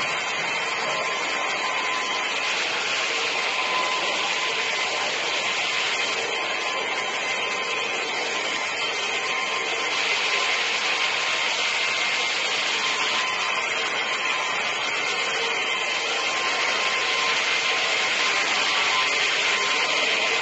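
A carpet-cleaning vacuum machine's motor running with a steady whine, while a hand brush scrubs the rug with a scratchy rubbing sound.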